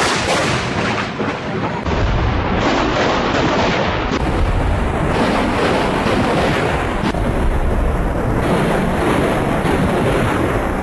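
Close lightning thunder: a loud, sustained crackling rumble that keeps going, changing abruptly a few times.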